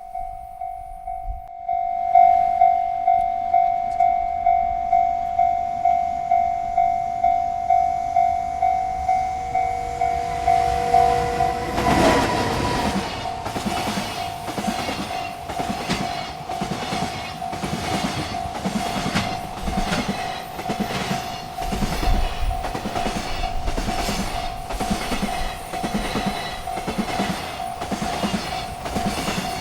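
Railroad crossing bell ringing about twice a second. A train horn sounds briefly just before a freight train reaches the crossing about twelve seconds in. After that the freight cars roll past with a steady clickety-clack of wheels over rail joints while the bell keeps ringing.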